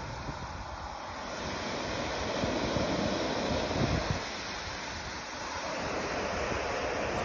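Ocean surf breaking and washing up the beach, a steady rush that swells and eases, with wind buffeting the microphone.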